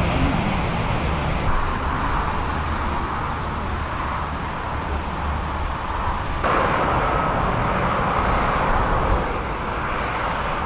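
Steady hum of highway traffic, an even rushing noise with low rumble that steps up abruptly about six and a half seconds in.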